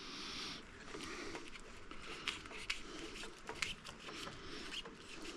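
Irregular light scraping and small clicks of plumbing parts being handled and fitted by hand.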